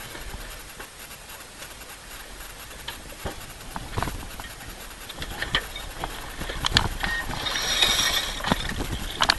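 Wind rumbling on the helmet camera's microphone, with scattered knocks and clicks from the sailboat's deck gear. About three-quarters of the way through comes a denser burst of rapid clicking and rushing as a winch is ground by hand.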